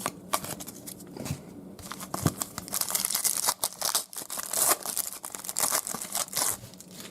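A trading card pack's foil wrapper being torn open and crinkled by hand, with scattered crackles at first and then a dense stretch of tearing and crumpling about halfway through.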